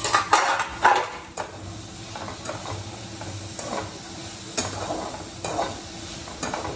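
A long metal spoon stirring and scraping freshly added chopped tomatoes and onions in a pan, over a steady sizzle of frying in oil. Several louder knocks and scrapes come in the first second, then lighter strokes about once a second.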